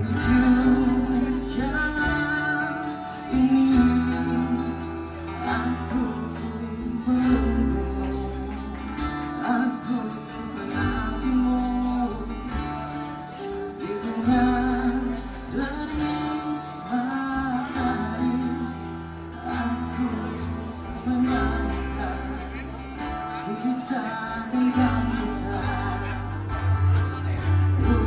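Live band playing a song: strummed acoustic guitars and a drum kit keeping a steady beat, with a sung melody over them.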